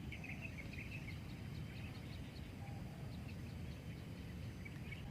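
Birds chirping in quick short notes, a flurry at the start and another near the end, over a steady low rumble.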